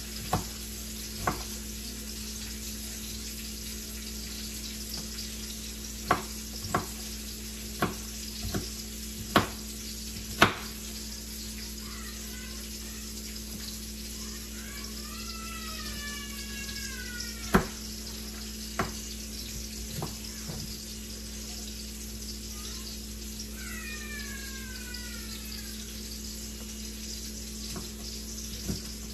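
Salmon fillets sizzling steadily in a cast-iron skillet, with scattered sharp knocks of a kitchen knife striking a plastic cutting board as a green pepper is sliced.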